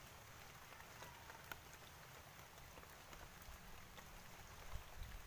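Near silence, with faint small water sounds as a hand works in shallow muddy water at an eel hole, and a low bump a little before the end.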